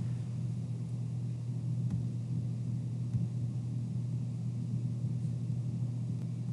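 Steady low hum with faint hiss: the recording's background room tone, with no other sound event.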